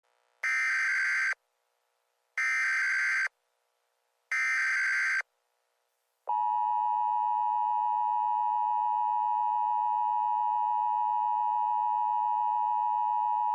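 Emergency Alert System SAME header: three short bursts of warbling data tones about two seconds apart. About six seconds in, the steady two-tone EAS attention signal starts and holds, announcing a new alert.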